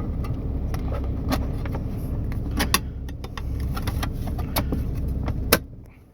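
Small clicks and knocks of the Icom ID-5100 radio's case being slid back on and pressed into place, over a steady low hum. A sharper snap comes about five and a half seconds in.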